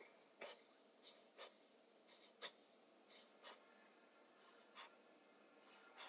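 Faint, quick breaths and rustles from a person doing crunches, about eight short puffs spaced irregularly, roughly one a second, over a near-silent room.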